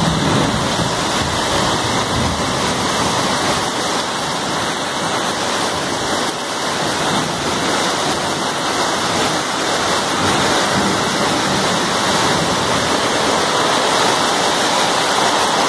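Heavy downpour of rain, a dense steady hiss.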